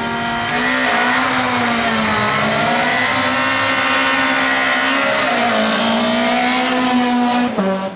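Small hatchback rally car's engine revving hard as it launches from the stage start. It accelerates away with two upshifts, the engine note dipping and climbing back each time, and the sound cuts off suddenly near the end.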